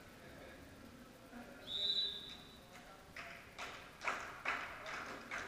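Volleyball referee's whistle blown once, a short shrill steady tone about two seconds in, followed by rhythmic hand claps ringing in the hall, about two a second, with players' voices.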